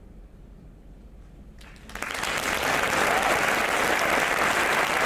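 A quiet moment after the song, then audience applause starts about two seconds in and holds steady.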